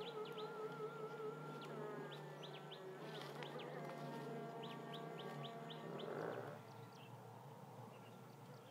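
Insects buzzing in a wavering hum, with runs of short, high, falling chirps over it; it all grows fainter after about six and a half seconds.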